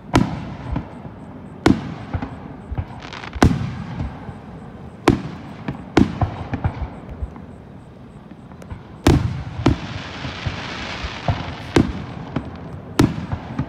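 Aerial firework shells bursting, about nine sharp bangs at uneven intervals of a second or two, each trailing off in a low rumbling echo. A spell of hiss follows the burst about two-thirds of the way through.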